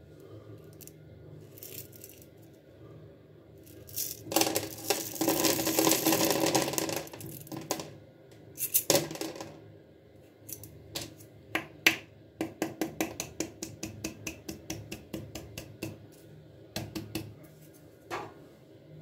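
Small plastic seed beads pattering down into a plastic tub: a dense rattling shower for about three seconds as the cup is emptied, then a run of quick separate clicks, about five a second, as more beads drop a few at a time.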